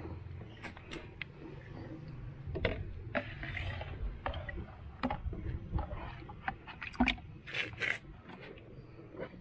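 Water trickling and splashing from a small plastic watering can, with scattered light knocks and splashes as it is handled over a plastic bucket of water.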